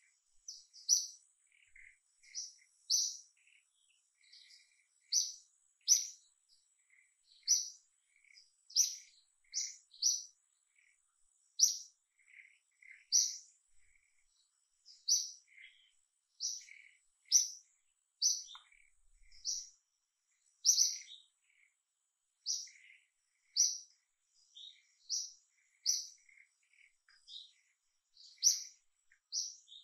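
Small birds chirping: short, sharp, high chirps repeating irregularly about once or twice a second, with fainter lower notes between them over a faint steady high tone.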